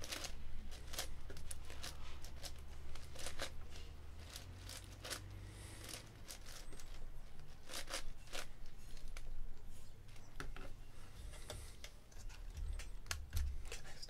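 Plastic layers of a MeiLong 10x10 speed cube being turned by hand, giving a quick, irregular string of clicks and clacks as the cube is solved like a big 3x3.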